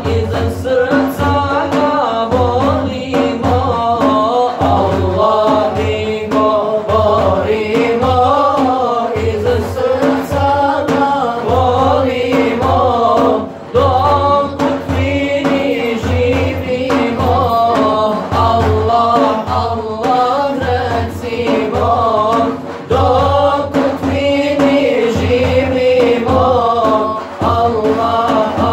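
Male voices singing an ilahija, a Bosnian Islamic devotional hymn, together, over a steady beat on a large frame drum (def).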